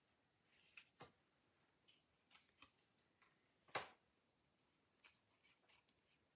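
Tarot cards being handled and flipped through: faint scattered clicks and taps, with one sharper snap of a card a little before four seconds in.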